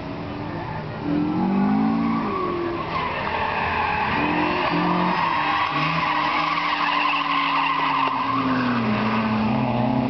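BMW E36 saloon drifting: a long tyre squeal, loudest through the middle of the slide, over the engine revving up and down as the throttle is worked.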